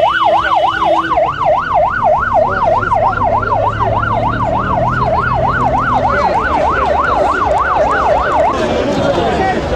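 Fire engine's yelp siren sweeping rapidly up and down, about three sweeps a second, then cutting off near the end, over a low engine hum.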